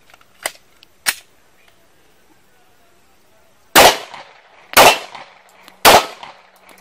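Two sharp clicks from a Glock pistol as a fresh magazine is seated and the gun readied during a fast reload, then three loud pistol shots about a second apart.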